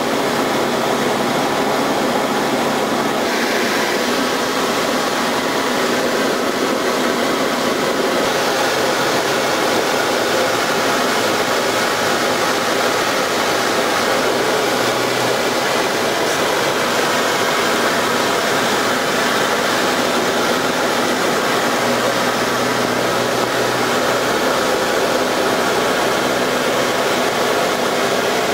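Light aircraft's engine and propeller running steadily at cruise, heard from inside the cockpit as a loud, even drone with no change in pitch.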